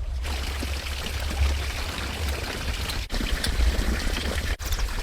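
Water running or pouring in a steady rush, with a low rumble underneath, cut by two brief dropouts about three and four and a half seconds in.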